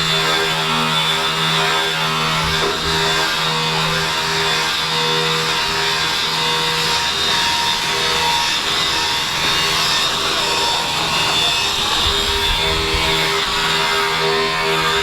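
Metalworking machinery running continuously in a metal workshop. A steady pitched hum sits under a rough hiss, and the hum drops out for a few seconds in the middle before returning.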